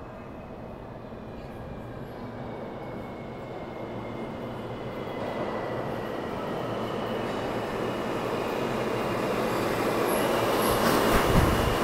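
New York City Subway R160-series train approaching, growing steadily louder, with a thin high whine over the rumble of wheels on rail. A heavier burst of rumble comes near the end as it arrives.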